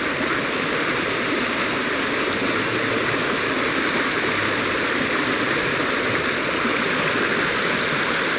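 Steady rush of flowing river water, unchanging throughout.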